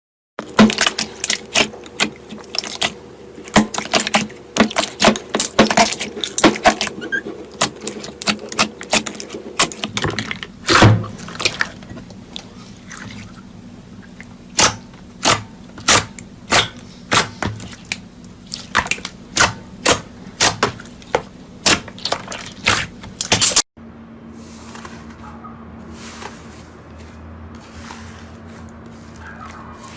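Slime being pressed and squeezed by hand, giving a long run of sharp crackling pops and clicks, for a stretch coming about two a second. About three quarters of the way through it cuts to quieter, fainter squishing.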